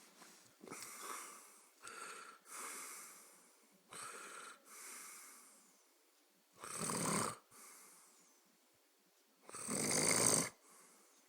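Snoring in deep sleep: a few soft, rasping breaths, then two loud snores about three seconds apart, the second the loudest.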